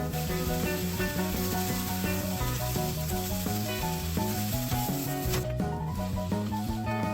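Food sizzling as it fries in a hot pan, a steady hiss that cuts off about five and a half seconds in, over background music.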